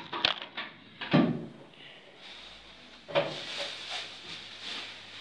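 Handling noise close to the phone's microphone: a light knock just after the start, a louder dull thump about a second in and another about three seconds in, with soft rubbing between.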